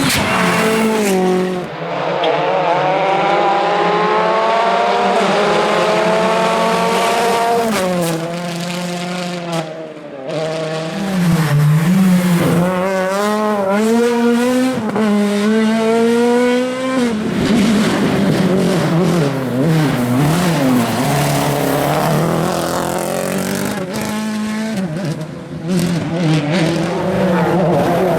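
Rally car engines at full throttle, pitch climbing hard through the gears and dropping sharply at each upshift as the cars go by. A rougher, noisier stretch in the second half has tyre noise in it.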